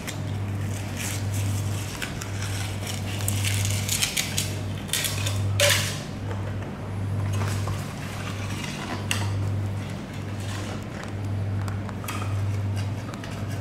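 A large tuna knife cutting through a bluefin tuna's flesh along the backbone, with scraping and a few sharp clinks of the blade against bone and board, the loudest about halfway through. A low machine hum pulses about once a second underneath.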